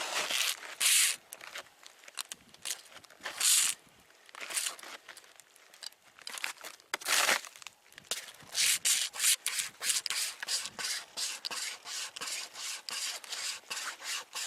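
Camping string saw rasping back and forth through wood, near the end of the cut. The strokes come irregularly at first, then settle into a steady rhythm of about two a second.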